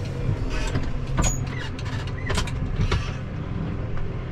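Case IH Maxxum tractor engine running steadily, heard from inside the cab, with several sharp clicks and knocks from the cab and its controls.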